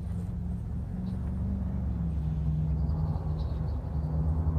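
A truck engine idling steadily with a low rumble. A few faint small clicks come about three seconds in.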